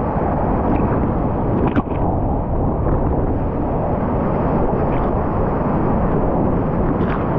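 Rushing whitewater of a river running high, heard as a loud, steady roar through a kayaker's action-camera microphone, with a sharp knock or splash on the camera about two seconds in.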